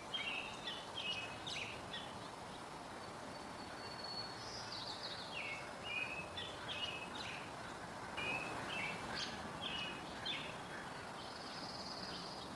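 Birds chirping: short, high, often falling chirps in scattered runs, with a couple of longer thin whistled notes, over a steady outdoor background hiss.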